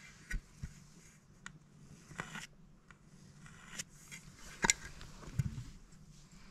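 Light handling sounds of a plate and fabric being moved: soft scrapes and rustles, with scattered small clicks and one sharp click about three-quarters of the way through.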